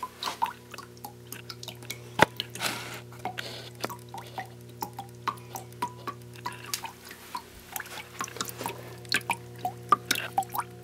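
Water dripping and splashing irregularly inside a rainforest terrarium, many small drops at uneven intervals, over a steady low hum from the pump that feeds the waterfall.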